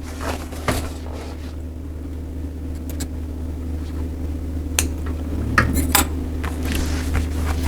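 Scattered light clicks, taps and rustles from hands working a seat cover and needle while stitching upholstery, over a steady low hum.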